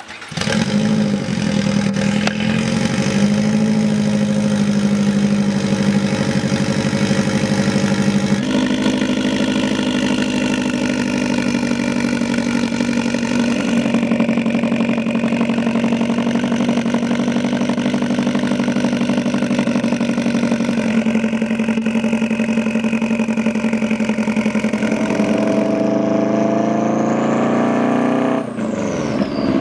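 Turbocharged Subaru WRX flat-four engine with a loud exhaust, starting up just after the beginning and then running at a steady idle. Its tone shifts abruptly a few times, with a brief dip near the end.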